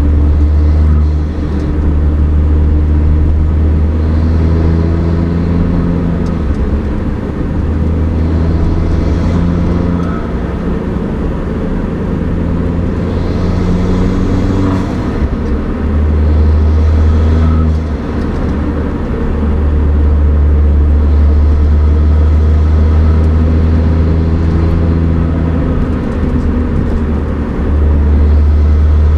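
Mini R56 John Cooper Works' turbocharged four-cylinder engine, breathing through a DOS cold air intake with stock exhaust, running under load while driving. There is a strong, steady low drone that dips briefly several times, with a few bursts of hiss.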